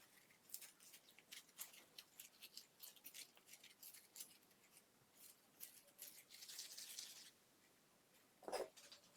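Quiet handling noise from craft work: a run of small, sharp clicks and snips a few times a second, a short hiss about seven seconds in, and a louder knock near the end.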